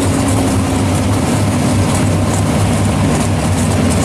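Chevrolet Chevelle SS drag car's engine running steadily, with no revving, as the car rolls slowly forward.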